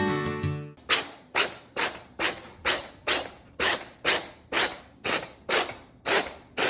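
A cat sneezing over and over in a fit, about a dozen short sneezes coming evenly at roughly two a second, after background music stops about a second in.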